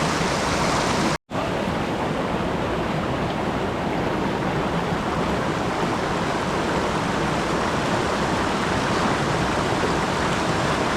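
Rushing water of a mountain stream running high after a typhoon, a steady dense noise that cuts out for a split second about a second in.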